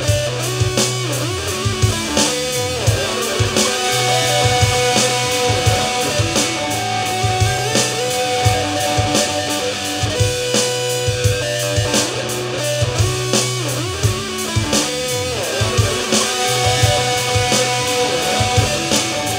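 Instrumental rock jam: guitar playing a riff that repeats every few seconds over held low notes, with drum hits throughout.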